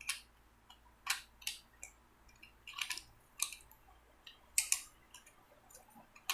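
Sharp, small plastic clicks and taps from handling and pressing the wireless keyboard-and-mouse set, spread unevenly, about one or two a second.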